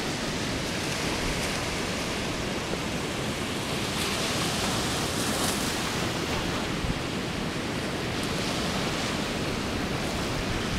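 Surf washing onto a sandy beach: a steady rush of breaking waves that swells a little around the middle.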